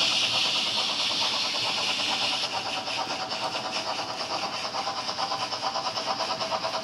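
Model steam locomotives running on layout track: a steady electric-motor whine with a quick, even clicking of wheels over the rail joints. A loud hiss runs over it and drops away about two and a half seconds in.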